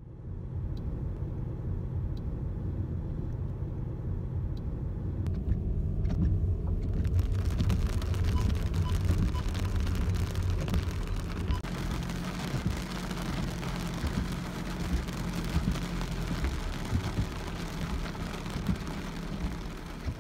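Car engine and road noise heard from inside the cabin while driving slowly up a rough dirt forest track: a steady low hum, with a louder rushing noise joining from about seven seconds in. It cuts off abruptly at the end.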